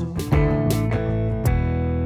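Instrumental band music from a worship song between sung lines: sustained guitar chords over bass, with a drum hit about a third of a second in and another near the end.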